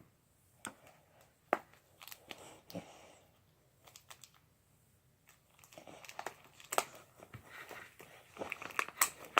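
Crinkling and sharp clicks of plastic being handled: scattered at first, then busier and louder in the last few seconds.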